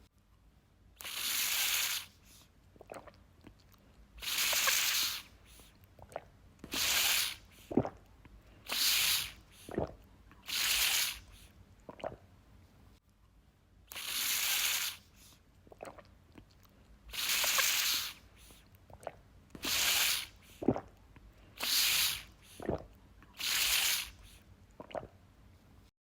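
Drinking water from a sport bottle: about ten hissing draws through the spout, each around a second long, with short wet clicks between them.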